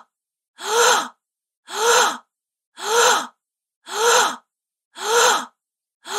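A woman's sharp gasp, the same short intake of breath repeated about once a second with silence between.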